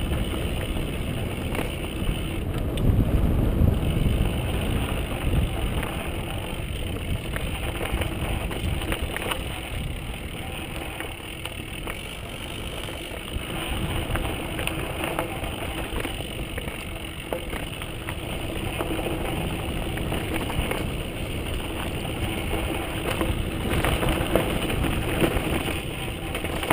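Mountain bike riding down dirt singletrack, heard through a camera mounted on the bike: a steady rattle with many small knocks from the bike and mount over bumps, tyre noise on the dirt, and wind rumble on the microphone that is strongest a few seconds in.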